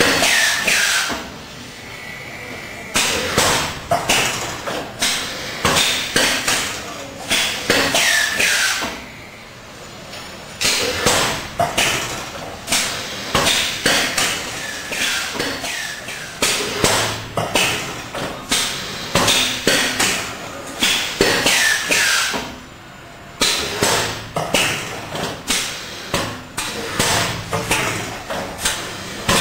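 Automatic tubular-bandage rolling and cutting machine running: a rapid clatter of mechanical knocks and clacks in runs of several seconds, broken by short pauses, with a brief falling whine now and then.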